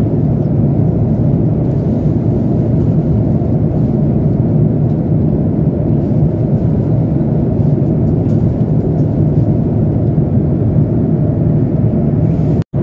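Steady airliner cabin noise in cruise flight: a constant low rumble of jet engines and airflow. It cuts out for an instant near the end.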